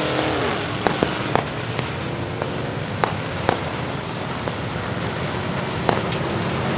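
A pack of race cars and pickups towing boats round a wet track, many engines running at once. One engine note falls in pitch about half a second in, over a steady rumble with scattered sharp cracks and pops.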